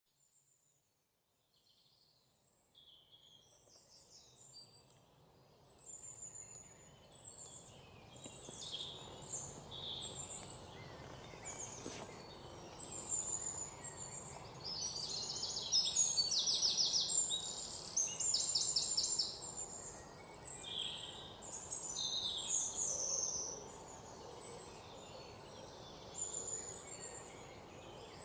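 Several birds chirping and calling over a steady outdoor background hiss, with a few fast rattling trills about halfway through. The sound fades in from silence over the first several seconds.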